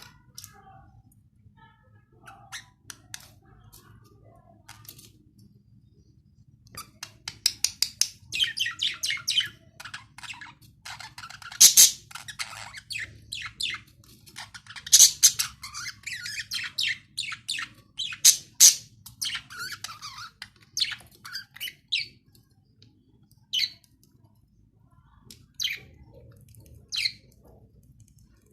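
Budgerigars chirping: scattered short, sharp chirps that become a dense run of rapid chirping for a long stretch in the middle, then thin out to occasional calls near the end.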